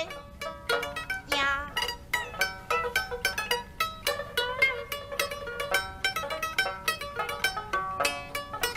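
Sanxian and pipa playing a plucked accompaniment in Suzhou pingtan style, with quick runs of notes. The tail of a sung phrase is heard right at the start.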